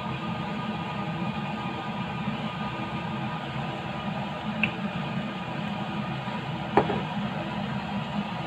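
Steady mechanical hum of a kitchen in the background. A faint click comes about four and a half seconds in, and a sharp knock near the end as the grill pan is shifted and tilted on the glass cooktop.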